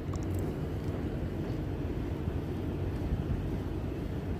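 Steady low wind rumble on the microphone, with no distinct events standing out.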